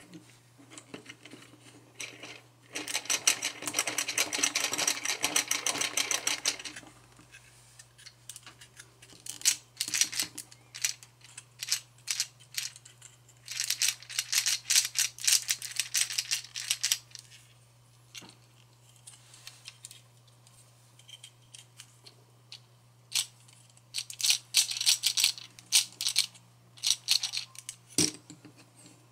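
LEGO 8858 model engine turned by hand: its plastic square pistons and gears clatter in fast runs of clicks. There are three spells of a few seconds each, with scattered clicks between them.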